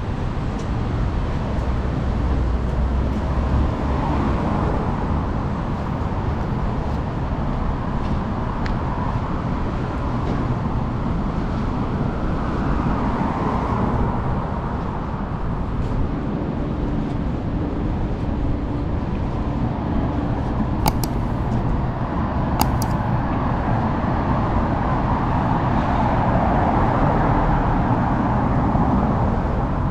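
City street traffic: cars passing one after another over a steady urban hum, the sound swelling and fading as each goes by. Two brief sharp clicks come about two-thirds of the way through.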